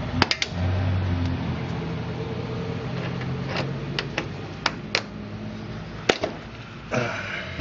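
Pliers working a hose clamp onto the lower radiator hose at the thermostat housing: a scattering of sharp clicks and knocks over several seconds, with a short scrape near the end, over a low steady hum.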